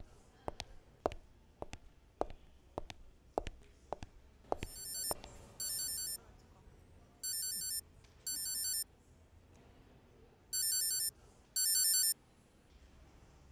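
Footsteps clicking on a hard floor, a little under two steps a second. About four and a half seconds in, a mobile phone starts ringing: a high, trilling ringtone in pairs of short rings, heard three times.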